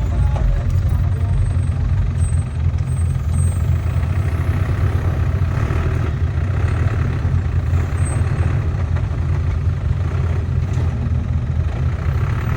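Off-road vehicle's engine running steadily, a continuous low rumble.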